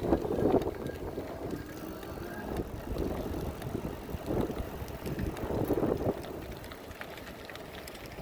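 Wind buffeting the microphone in gusts over the low rumble of a moving electric bike.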